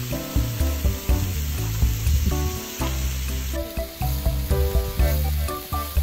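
Food frying and sizzling during cooking, with background music and its melody of short notes playing over it.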